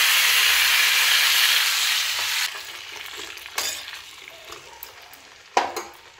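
Chopped vegetables dropped into hot oil in a kadai, sizzling loudly; the sizzle fades after about two and a half seconds. A steel spoon then stirs the vegetables, with a couple of sharp knocks against the pan.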